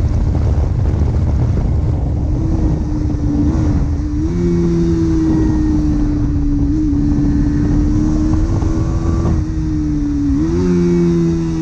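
Bajaj Pulsar NS200 single-cylinder engine with its stock exhaust, running at a steady cruising pitch while riding, over low wind rumble on the microphone. The engine note steps up slightly about four seconds in and again near the end.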